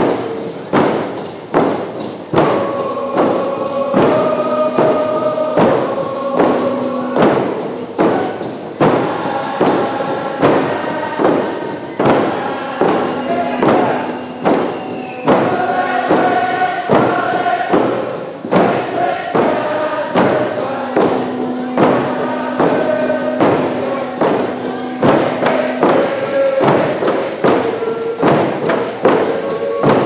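Large hide hand drums beaten together in a steady, even rhythm, with a group of voices singing a song in long held notes over them.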